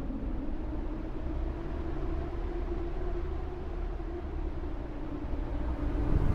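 Steady low wind noise, growing louder near the end.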